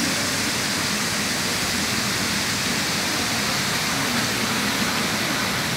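Steady, even hiss of busy train-station ambience, with a faint murmur of distant voices under it.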